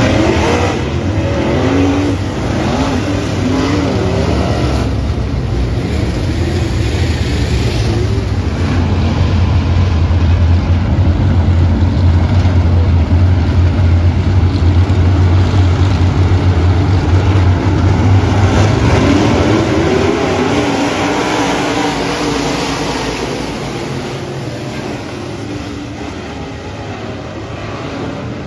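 A pack of dirt-track race cars running together, their engines droning steadily as the field circles close by, then revving up about two-thirds of the way through and growing somewhat quieter near the end.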